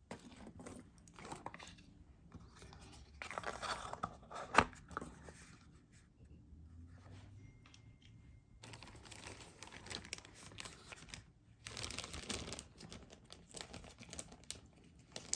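Intermittent crinkling and rustling of small plastic jewelry bags being handled, with one sharp click about four and a half seconds in.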